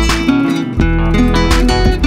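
Background music: an acoustic guitar strumming chords, with a stroke every half second to second.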